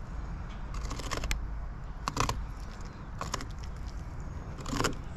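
A knife cutting and scraping along the hard, scaly skin of a longnose gar in about five short strokes at uneven intervals, separating the tough skin from the meat.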